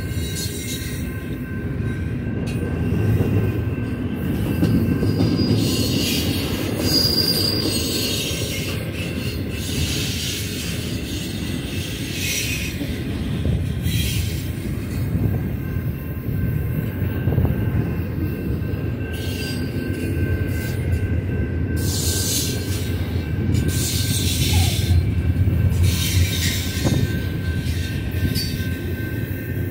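Double-stack container train's cars rolling past: a steady low rumble of steel wheels on rail, with high-pitched screeching flaring up several times.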